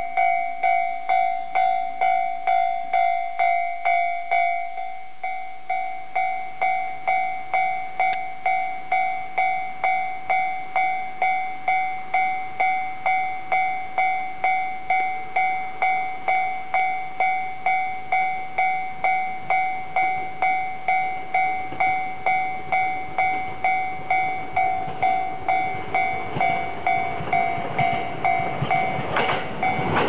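Japanese level-crossing warning bell ringing steadily, about two strikes a second. Near the end the running noise of an approaching JR E231-1000 series electric train rises and swells as it reaches the crossing.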